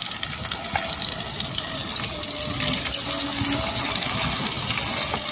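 Battered banana pieces deep-frying in hot oil, a steady sizzle with many small crackles and spatters.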